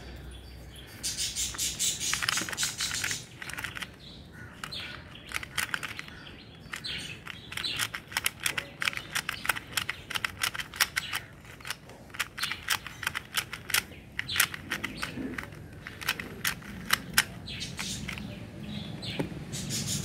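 Plastic 2x2 speed cube being turned fast by hand: quick runs of sharp clicks and clacks as its layers turn, with short pauses between runs.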